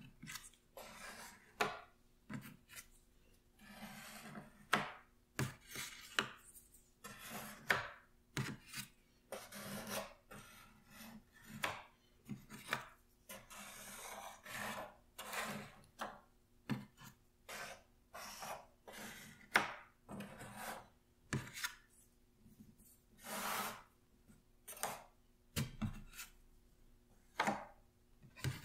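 Cardboard jigsaw puzzle pieces handled on a puzzle board: soft scrapes as pieces are slid across the surface and light irregular clicks and taps as they are picked up and set down.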